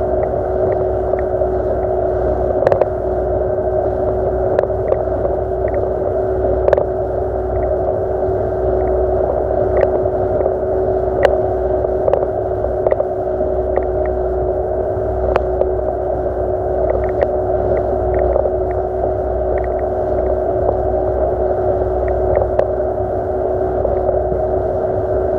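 Yamaha 40 hp two-stroke outboard motor running at a steady, unchanging throttle while the boat cruises, with scattered sharp clicks over the engine note.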